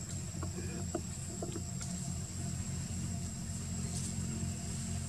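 A vehicle engine running steadily, a low, even rumble. A thin steady high whine runs alongside it, and a few faint clicks come in the first two seconds.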